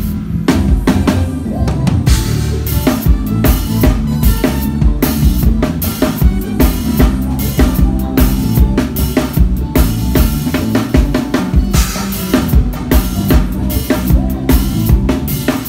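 Drum kit played live along with the band's song: a dense, driving beat of kick drum, snare and cymbals, with bass notes underneath.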